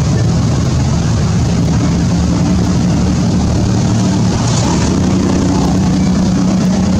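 A motor running steadily: a loud, even low drone with a constant hiss over it.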